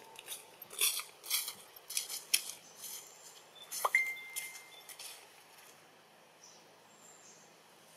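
Dry leaf litter crackling and rustling in a string of sharp crunches as macaques move over it, fading out in the second half. Near the middle, a thin whistle-like squeak sweeps up and holds for about a second.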